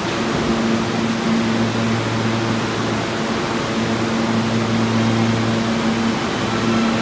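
R46 subway train standing at the platform with its air conditioning and onboard equipment running: a steady rushing noise under a low hum that fades in and out every couple of seconds.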